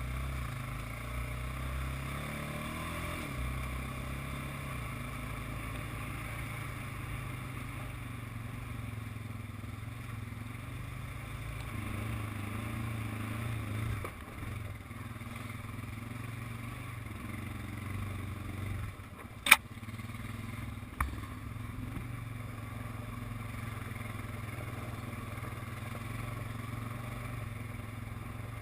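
ATV engine running steadily under way on a dirt trail. About two-thirds of the way through there is one sharp, loud knock, the loudest sound here, and a smaller one a second and a half later.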